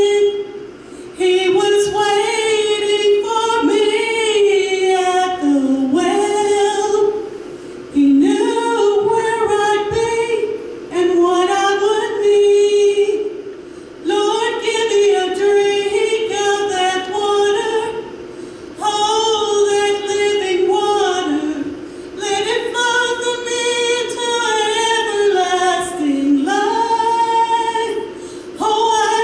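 A woman singing a slow gospel solo into a microphone, in long held phrases of a few seconds each with short breaths between.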